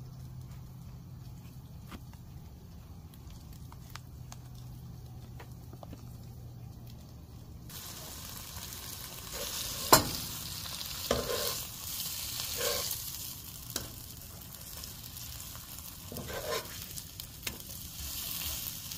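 Meat frying on a hot camp grill: a low steady hum with faint ticks, then about eight seconds in a loud sizzle starts abruptly and carries on, with several sharp knocks of a cooking utensil, the loudest about two seconds after the sizzle begins.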